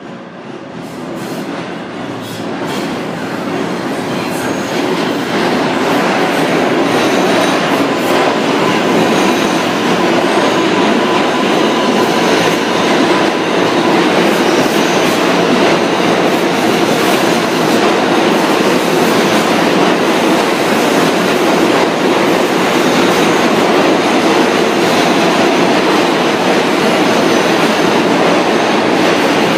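A New York City Subway 7 train, an R188, comes out of the tunnel and runs into the station, growing louder over the first few seconds and then a steady rumble as the cars slide past. Its wheels clack over the rail joints, with a thin wheel squeal partway through.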